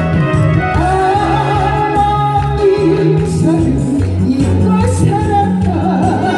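A woman sings a Korean trot-style song over a loud backing track with a steady bass and beat.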